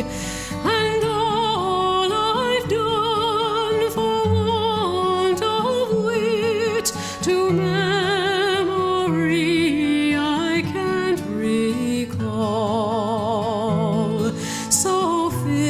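Background music: a slow melody with a wavering vibrato, moving in steps over held low notes.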